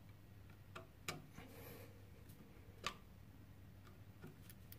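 Faint, scattered clicks of a VDE-insulated screwdriver's metal tip working a terminal screw in a wall socket, with one sharper click about three seconds in.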